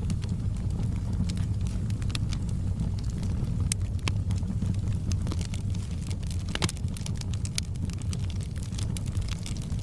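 Wood fire crackling: scattered sharp pops and snaps over a steady low rumble of the flames, with one louder pop about two-thirds of the way through.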